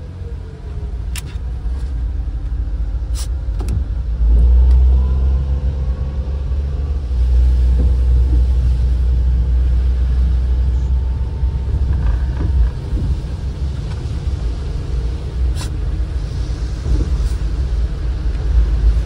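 A van driving on a wet road, heard from inside the cabin: a low engine and road rumble that swells about four seconds in, with tyre hiss and a few sharp clicks.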